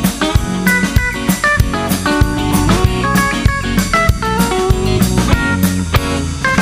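Instrumental music from a Bengali pop song, without singing: guitar notes over a drum kit keeping a steady beat.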